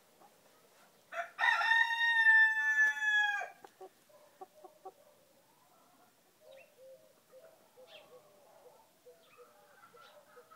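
Frizzled Pekin bantam rooster crowing once, a loud call of about two and a half seconds starting about a second in, its pitch dropping slightly at the end. Quiet, low clucking follows.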